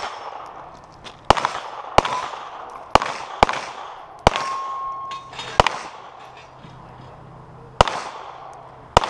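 Pistol shots fired in a practical shooting stage: about eight sharp cracks at uneven spacing, each echoing, with a pause of about two seconds before the last two. One shot about four seconds in is followed by a ringing tone lasting about a second.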